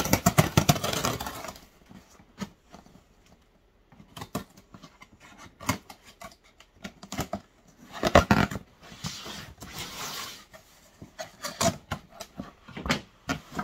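Cardboard shipping box being handled and its packing tape cut and torn open: irregular scraping, rustling and taps on the cardboard, loudest at the start and again about eight seconds in.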